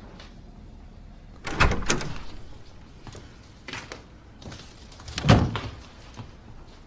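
A door being worked at night: a double knock about one and a half seconds in, a lighter click near four seconds, and a louder thud a little after five seconds, as of a door shutting.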